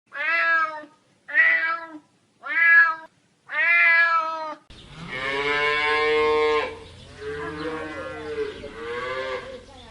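Animal calls from two different recordings: four short calls about a second apart, then a longer call followed by three shorter ones over background noise.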